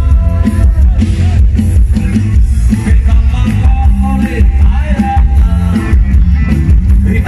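Loud amplified band music from a Thai rot hae music-truck stage, heavy bass under a melody.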